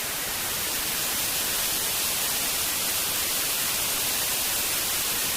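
Steady hiss of white-noise static, even and unbroken, brightest in the high range.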